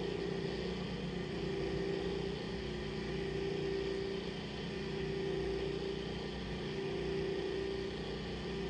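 An electric kitchen grinder's motor running steadily, grinding almond flour and powdered sugar down finer. Its hum swells and eases every couple of seconds.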